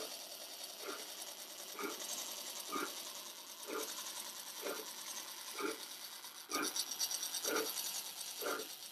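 HO-scale 4-4-0 model steam locomotive running: a steady high mechanical whir with a soft rhythmic beat about once a second, getting louder about six and a half seconds in.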